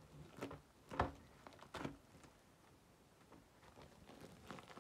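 Plastic shrink-wrap being pulled and peeled off a stack of canvas boards by hand: faint crinkling and rustling, with a few short, louder handling noises about a second in and again near two seconds.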